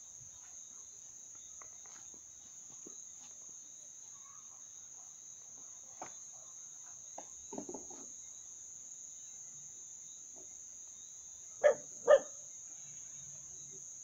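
Steady, high-pitched chirring of crickets in the field. About twelve seconds in, an animal gives two short, loud calls in quick succession.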